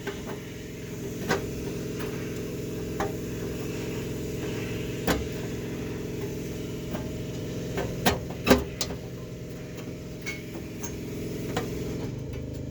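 Steady low hum, with scattered sharp clicks and knocks from handling and tapping the metal chassis of a vintage color TV, a cluster of them about eight seconds in.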